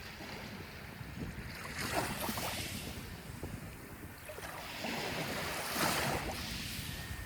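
Small waves washing onto a shore: two swells of surf, about 2 s and about 5 to 6 s in, over a steady low rumble of wind.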